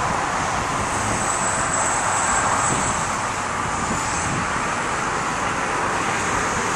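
Steady drone of engine-driven machinery running without a break, with a faint high whine over it in the first few seconds.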